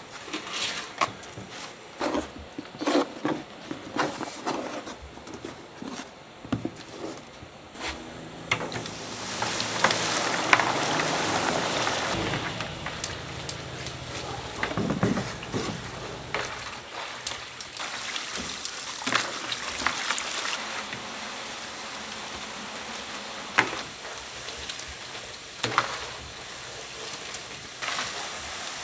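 Round donut dough balls deep-frying in a large pot of hot oil, with a steady sizzle that starts about eight seconds in and is loudest just after. Before that come scattered knocks and clicks from handling the wooden tray and dough, and later occasional clinks from a wire strainer against the pot.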